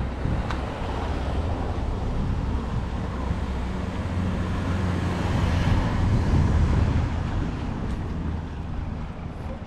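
A motor vehicle passing close by: a low engine rumble that swells to its loudest about six seconds in and then fades.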